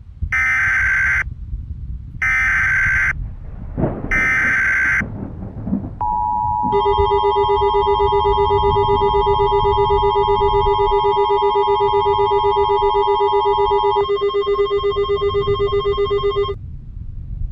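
Emergency Alert System tones: three short bursts of screeching digital header data, about a second each, then the long steady two-tone attention signal with a pulsing buzzy tone layered on it. The two-tone stops about 14 seconds in and the buzz about two and a half seconds later; they herald a tornado warning broadcast.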